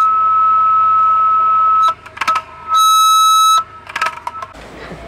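Handheld megaphone sounding a loud, steady high-pitched tone for about two seconds, then a few short blips and a brief, loud buzzing blast about three seconds in.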